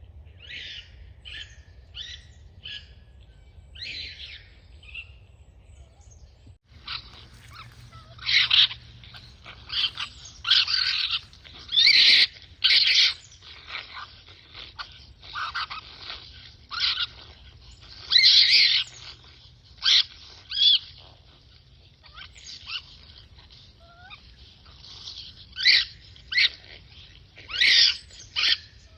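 Electronic raccoon call played through a Bluetooth speaker: a long series of short, high-pitched animal calls at irregular intervals, fainter at first and much louder from about seven seconds in.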